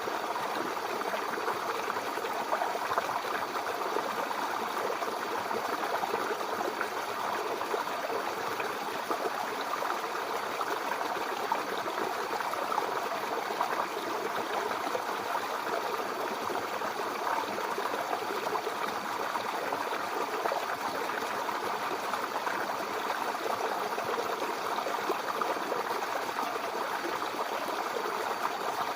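Mountain river flowing over rocks: a steady, even rush of running water that does not change.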